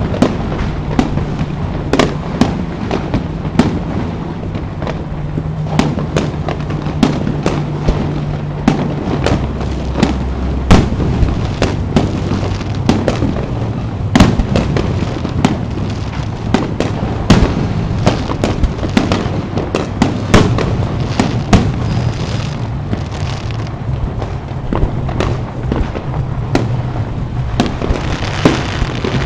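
Aerial fireworks shells bursting in quick succession: a dense, unbroken run of sharp bangs, several a second, over steady low tones that shift in pitch every few seconds.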